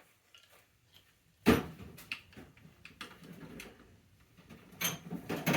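Hand tools being handled: a sharp metal clunk about one and a half seconds in, then scattered clicks and knocks, with more knocks near the end.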